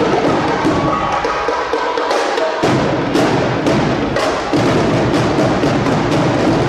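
Drill-team drum line playing a fast cadence of sharp snare and tenor drum strokes; deeper, heavier drums join in about two and a half seconds in.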